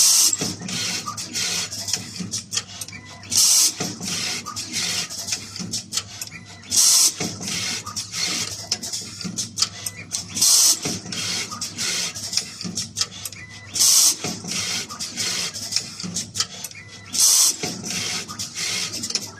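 Automatic wire cutting, stripping and PCB soldering machine running through its cycle. A short, loud hiss comes about every three and a half seconds, with rapid clicking and ticking between the hisses over a steady low hum.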